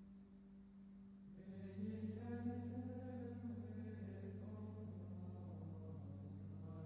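Faint chanted singing over steady held accompaniment notes, with a deeper held note coming in about a second and a half in.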